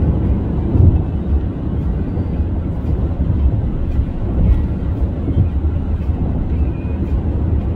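Steady low rumble of cabin noise inside an Airbus A350-900 airliner: engine and airflow noise with no distinct events.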